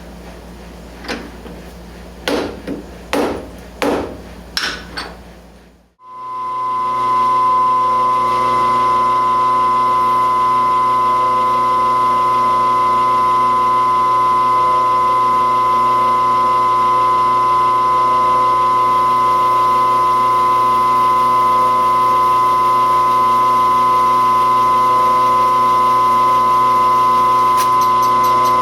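About six sharp knocks of metal being tapped in the first five seconds, as when steel stock is tapped down in a milling machine vise. After a short break, the milling machine runs steadily, with a constant high whine over a steady hum.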